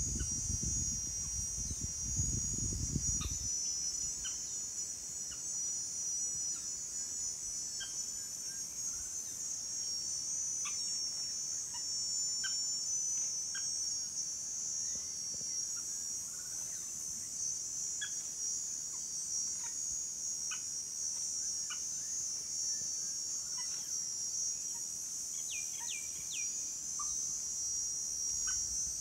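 Steady, high-pitched drone of an insect chorus from the forest, with scattered short bird chirps throughout. A low rumbling noise is there for the first three seconds, then stops.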